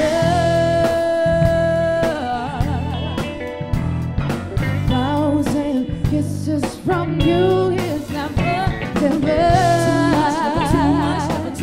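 Female soul singers performing live with a backing band in 1970s soul style. A long held note opens, then the voice moves through shorter phrases and ends on wavering, vibrato-laden runs.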